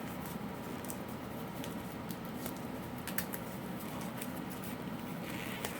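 Hands handling electrical cords and a soft neoprene cable sleeve: scattered small clicks and rustles, with a short rasp near the end, over a steady low hum.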